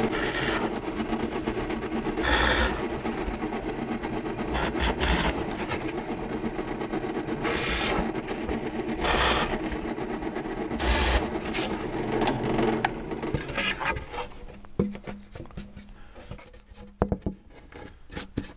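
Benchtop drill press running with a steady motor hum while its bit bores through 3/4" plywood several times, each plunge a short burst of cutting noise. After about 14 seconds it goes quieter, with a few knocks as the board is handled.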